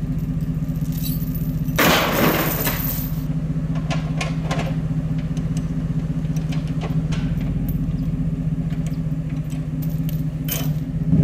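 Chevrolet Silverado Z71 pickup's engine idling steadily, with a loud rattling clatter about two seconds in and a few small clinks after it as a tow line is hooked to the front of the wrecked car.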